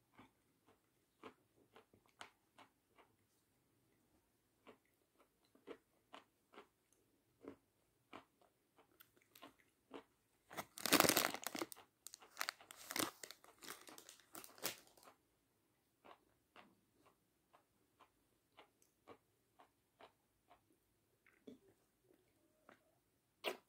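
Close-miked chewing of a dry cracker: soft, scattered mouth clicks and crunches. About halfway through, a plastic wrapper crinkles loudly for a few seconds as it is handled.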